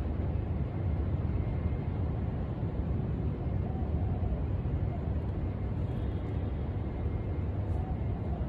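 Steady low outdoor background rumble at an even level, with no distinct events.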